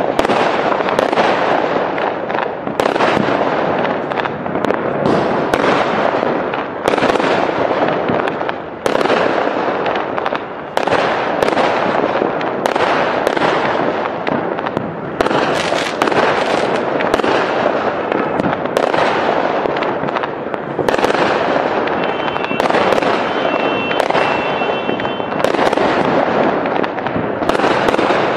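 Large fireworks display going off in a continuous barrage, with sharp shell bursts about once a second over a steady crackle.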